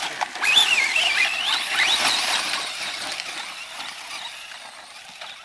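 Electric motor of a Traxxas Slash radio-controlled short-course truck whining at high pitch, the pitch rising and falling as the throttle is worked, loudest in the first two seconds and then fading as the truck runs off up the dirt mound.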